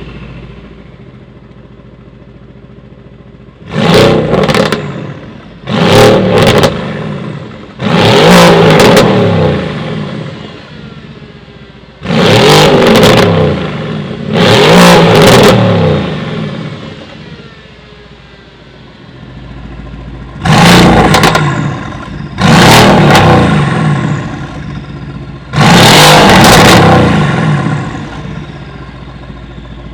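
Mercedes-AMG GT R's 4.0-litre twin-turbo V8, running through decat downpipes, idling and blipped hard eight times in three groups (three, two, three), each rev dropping straight back to idle.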